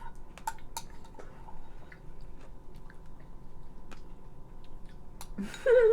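Close-miked chewing and small wet mouth clicks from eating ice cream with toppings, with a voice coming in near the end.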